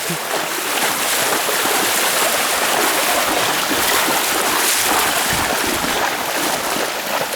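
Steady rush of river water flowing over rocks, with a brief low rumble about five seconds in.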